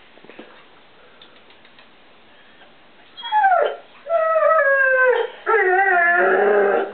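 English Setter howling and whining for treats: three drawn-out calls starting about three seconds in, the first short and sliding down in pitch, the next two longer, with the last one wavering.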